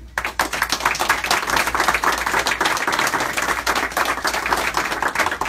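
Audience applauding: dense clapping from a group of people starts a moment in and carries on steadily.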